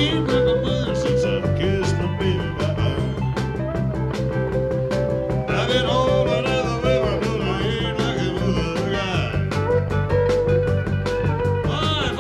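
Background music with a steady beat, guitar and singing.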